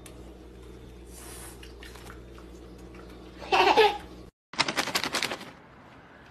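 A toddler's loud, brief squealing laugh about three and a half seconds in. After a short break, a rapid run of sharp clicks or rattles lasts about a second.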